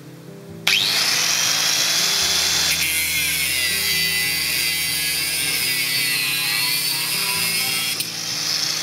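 Angle grinder with a cutting disc switched on about a second in, its whine settling at once, then grinding through a threaded steel rod clamped in a vise, the whine wavering in pitch as the disc bites.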